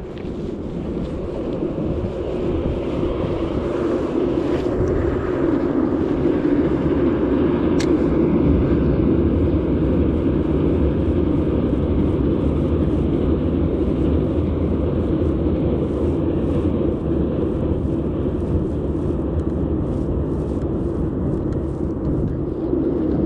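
A steady low rumble, building up over the first few seconds and then holding.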